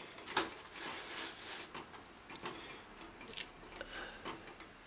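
Light clicks and taps of a glass sheet being lifted and set down by gloved hands, with soft handling rustles; sharper clicks about half a second in and again about three and a half seconds in.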